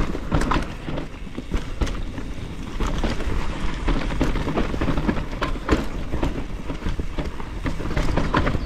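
Mountain bike descending a rooty singletrack: a steady rumble of tyres on dirt, broken by frequent sharp rattles and knocks from the bike over roots.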